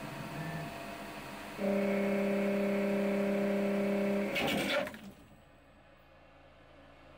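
EMCO PC Turn 50 CNC lathe cutting a brass nozzle blank under the wrong program. The machine runs with a low background noise, and about one and a half seconds in a loud steady hum sets in. Around four and a half seconds a harsh half-second crunch marks the tool going into the part wrongly, and then the machine falls nearly silent as it stops.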